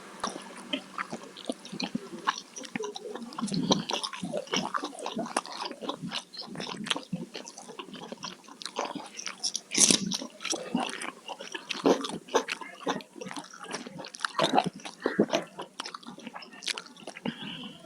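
Close-miked chewing and biting of food, with wet, irregular mouth clicks and smacks.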